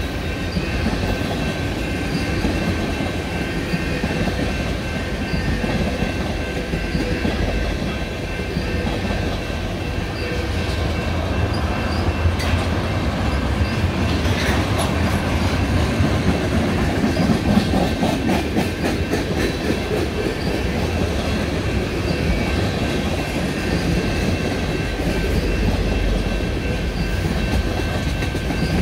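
Freight train of tank cars rolling past with a steady low rumble, the wheels clicking over rail joints, busiest in the middle of the passage. A thin steady high tone sits over the rumble.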